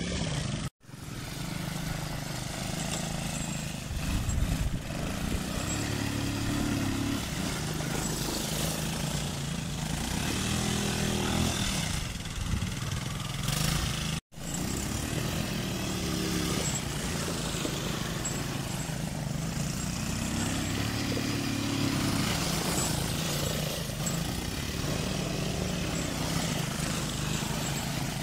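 Small quad (ATV) engine running and revving as it is ridden over dirt, its pitch shifting up and down with the throttle. The sound cuts out for an instant twice, about a second in and about halfway through.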